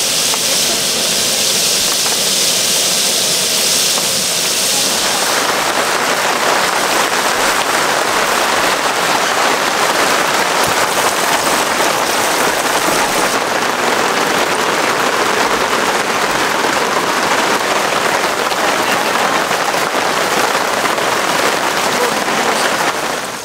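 Heavy rain pouring onto a camping tarp: a loud, dense, steady hiss that shifts abruptly in tone about five seconds in and again about thirteen seconds in.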